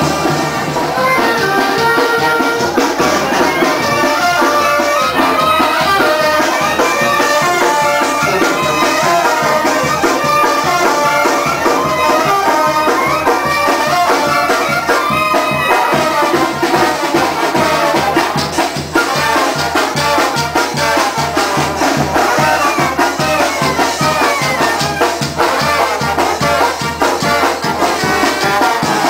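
Live band music with brass instruments and drums playing loudly to a steady beat.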